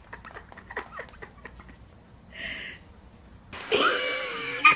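Faint tapping of a small dog's sock-covered paws on a hard floor, then about three and a half seconds in, loud laughter.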